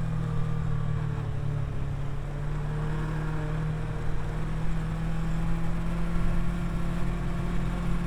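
Kawasaki Versys 650's parallel-twin engine running steadily while the motorcycle is ridden, its pitch only gently easing and rising.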